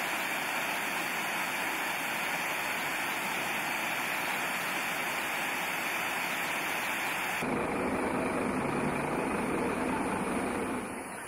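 Water pouring over a low stream weir, a steady rushing noise. About seven and a half seconds in it cuts abruptly to a lower, denser sound of a large tour bus engine running.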